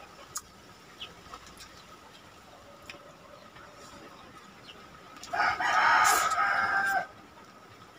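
A rooster crows once, starting about five seconds in and lasting under two seconds. Faint small clicks come before it.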